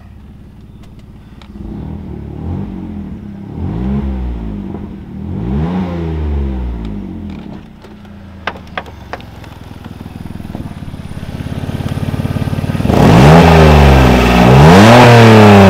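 BMW E46's M54 inline-six engine idling and then revved several times, the revs growing much louder near the end with two final peaks. The exhaust has drilled holes in the muffler, which make it sound harsh; the owner calls the sound horrible.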